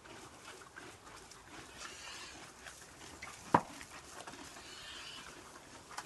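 A pony with equine asthma (heaves) breathing noisily: two drawn-out breaths about three seconds apart, with one sharp knock between them.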